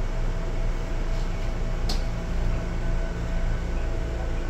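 Sangi Railway 101 series electric train running, heard from inside the car: a steady rumble with a faint steady whine over it, and one sharp click about two seconds in.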